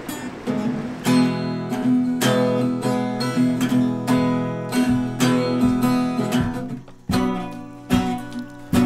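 Acoustic guitar strumming chords in a steady rhythm as background music, the strumming growing fuller about a second in.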